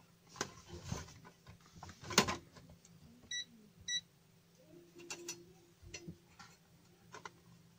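A handheld digital multimeter gives two short high beeps about half a second apart as its buttons are pressed, amid scattered clicks and knocks from handling the meter and its probes, the loudest a little over two seconds in.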